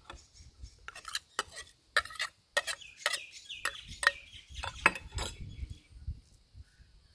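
A metal spoon clinking and scraping against a small stainless-steel bowl in a quick run of sharp clicks as herb marinade is spooned out; the clinks stop about five seconds in.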